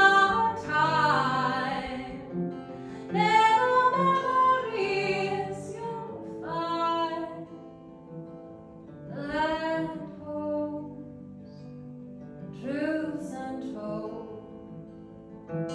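A woman singing in several drawn-out phrases with gaps between them, over an acoustic guitar playing sustained chords.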